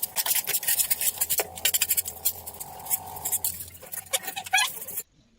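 Rapid, irregular scratching and clinking from hands-on work, cutting off abruptly about five seconds in.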